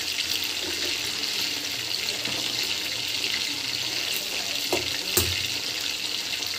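Chicken 65 pieces deep-frying in hot oil in a kadai: a steady bubbling sizzle as the large pieces cook through. Two brief knocks come about five seconds in.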